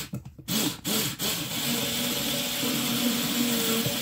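Small Workzone battery drill with a drill-chuck adapter drilling slowly into a 3D-printed plastic spray nozzle. The motor gives a few short spurts, then from about a second in runs steadily with a low hum.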